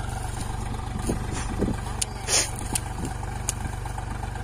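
Swaraj 744 FE tractor's three-cylinder diesel engine running steadily as it pulls a sugarcane planter through the furrows. Scattered clicks and knocks come from the machinery, and a short noisy burst about two seconds in is the loudest moment.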